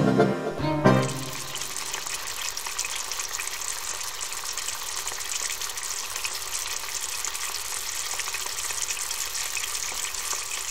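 Diced food sizzling steadily in a stainless-steel frying pan on the hob, a dense, even crackle, after the last note of background music fades about a second in.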